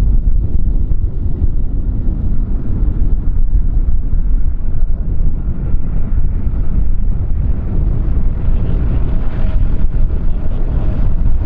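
Strong wind buffeting the microphone with a loud, gusty low rumble. About eight seconds in, a faint steady jet-engine whine from a nearby airliner joins it.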